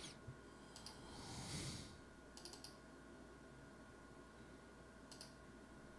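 Near silence with a few faint computer mouse clicks: a double click about a second in, a quick run of clicks a little later, and another double click near the end.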